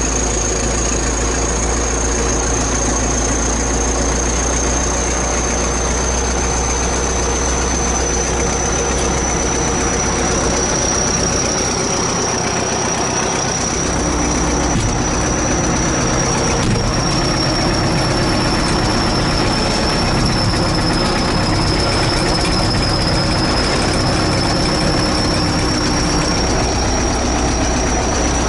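The diesel engine of a ChTZ T-170 bulldozer runs steadily, with a thin high whine over it. About halfway through, the engine note shifts and gets a little louder.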